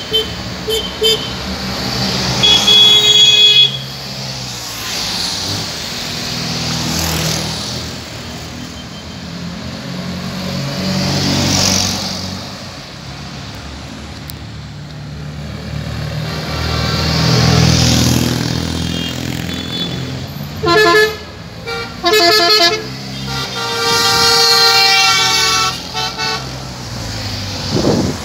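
Classic Fiat 500s driving past one after another, their air-cooled two-cylinder engines swelling and fading as each goes by. Over them come horn toots: a few short beeps at the start, a run of quick honks about two-thirds in, then one longer honk.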